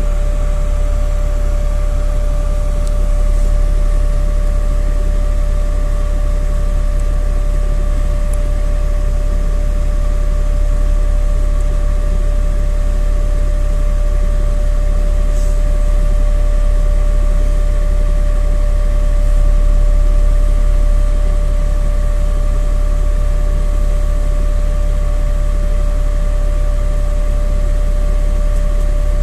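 Cabin noise inside a NefAZ city bus: a steady deep rumble with a constant, even-pitched whine over it.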